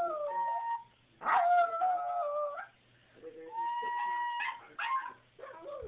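A dog howling along with a child's recorder: long wavering howls that slide downward, then short whimpers near the end. The recorder holds a steady high note in between.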